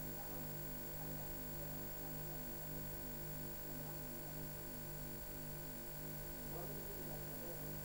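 Steady electrical mains hum with a faint, regularly pulsing buzz over it and a thin high-pitched whine.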